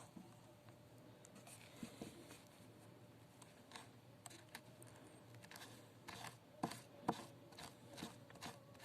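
Quiet small clicks and taps of hand-held work on an electric drill's carbon brush and its wire during soldering, scattered at first and more frequent later, with two sharper clicks about two-thirds through. A faint steady hum runs underneath.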